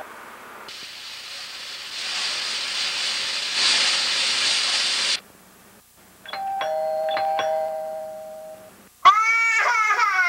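A steady hiss that cuts off abruptly, then a held two-note chime with light ticks. About nine seconds in a toddler breaks into loud crying, a wail falling in pitch.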